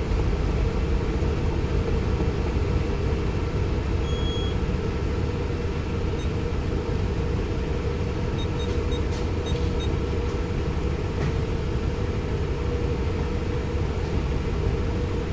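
Steady low mechanical rumble with a faint hum running through it. A few short, faint high-pitched beeps come about four seconds in and again around nine seconds.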